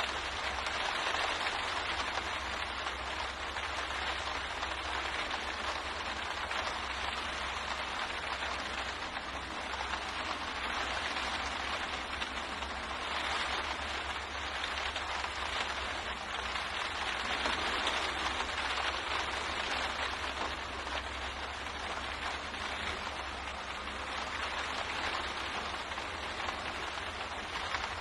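Steady rain pattering on a window pane, a dense even hiss that swells and eases slightly, over a low steady hum.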